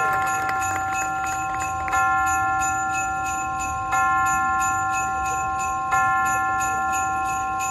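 Christmas music with a sustained bell-like chord struck four times, about every two seconds, over a light, steady ticking.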